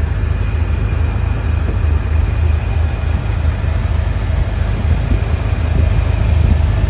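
1976 Chevrolet Corvette's stroked 350 (383) V8 with headers idling steadily, a low even pulse; quiet as can be.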